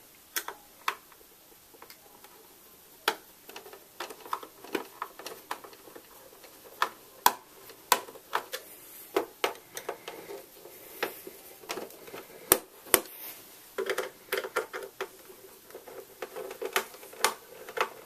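Screwdriver backing screws out of the plastic back cover of an HP Envy 23 all-in-one PC: light, irregular clicks and ticks of the tool and screws, with brief handling rustle.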